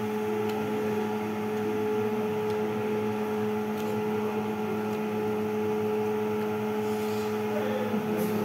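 Steady electrical hum at one constant pitch from a running motor or appliance, with a few faint clicks of people eating with their hands.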